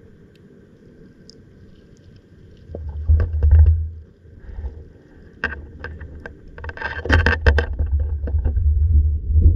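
Muffled underwater rumbling of water moving against a submerged camera, coming in bouts from about three seconds in, with scattered sharp clicks and knocks that bunch together a little past the middle.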